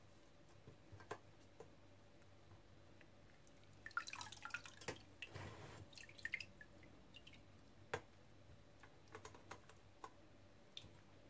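Faint water dripping and trickling off soaked rice-vermicelli sheets as they are lifted from a pot of water into a metal colander, with scattered drips and soft clicks and a brief run of trickling about five seconds in.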